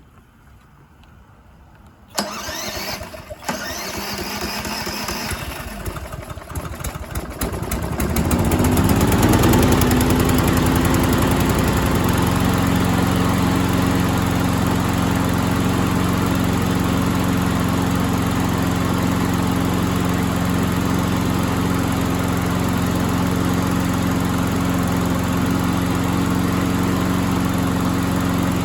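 Troy-Bilt lawn mower engine being started: it is cranked from about two seconds in, catches and revs up around eight seconds, then settles into a steady run. The engine runs well.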